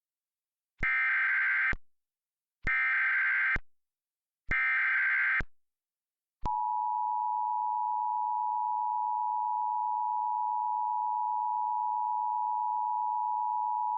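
Recreated Emergency Alert System tornado-warning tones: three short bursts of SAME header data, each just under a second, then, about six and a half seconds in, the steady two-tone attention signal, which carries on past the end.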